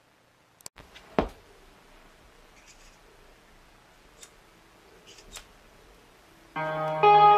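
Record stylus set down on a vinyl LP: a few clicks and a thump about a second in, then the lead-in groove's faint hiss with scattered pops. Near the end, guitar music from the record begins.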